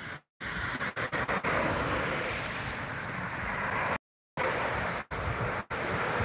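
Steady rushing road noise from traffic, with wind, cut by two short drop-outs to silence, just after the start and about four seconds in.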